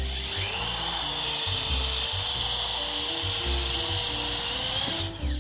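Power drill turning a step drill bit through the sheet-steel top of a rolling tool cart: the motor whine rises as it spins up, runs steadily while the bit cuts, then winds down about five seconds in. Background music plays underneath.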